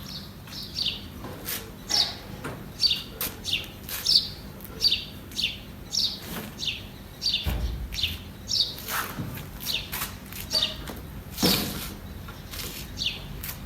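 A bird calling over and over: a short, high, falling chirp about twice a second. Scattered clicks and a low thump about seven and a half seconds in.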